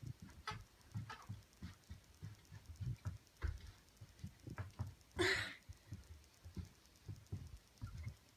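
Swivel office chair being spun round and round, giving a string of soft low knocks and taps a few times a second, with one short, louder rush of noise about five seconds in.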